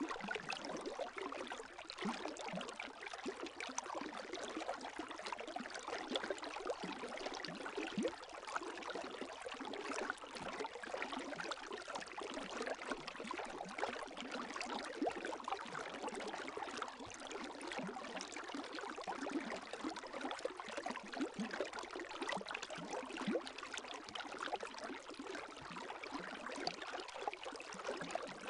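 Gentle lake waves lapping at the shore: a steady wash of water full of small splashes and trickles.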